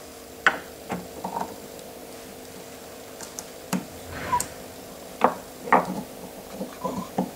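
Scattered clicks and light knocks of small metal parts and tools being handled on a wooden bench as a shaft coupler is fitted onto a stepper motor's shaft, over a faint steady hum.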